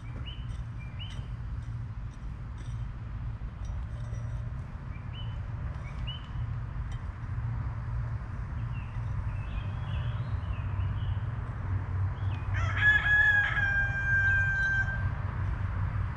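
A rooster crows once, about twelve and a half seconds in: one long call held for over two seconds, the loudest sound here. Small bird chirps come and go throughout over a steady low rumble.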